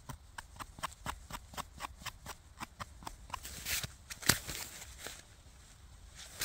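Small knife scraping soil off the stem of a freshly picked porcini mushroom, quick short strokes about four a second, then a few louder separate clicks, the sharpest about four seconds in.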